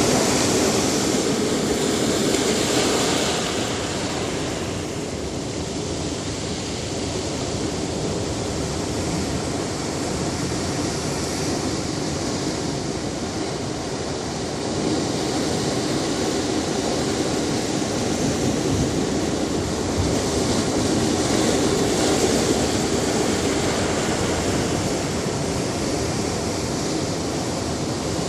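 Ocean surf washing onto a beach: a continuous rush of breaking waves that swells and eases, louder near the start and again about three quarters of the way through.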